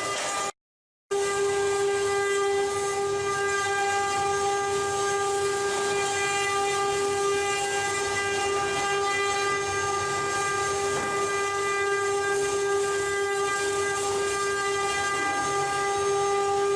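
CNC wood-carving router spindle running at a steady high speed: a constant whine over the hiss of the bit cutting wood. The sound drops out for about half a second near the start.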